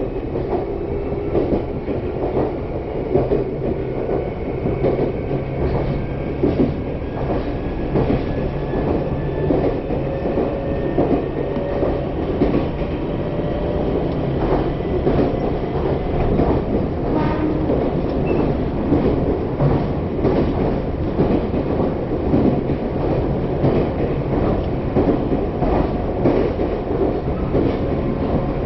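Meitetsu Mikawa Line local electric train running, heard from inside the passenger car. A steady rumble is overlaid with many quick wheel clicks over the rails, and a faint motor whine slowly rises in pitch.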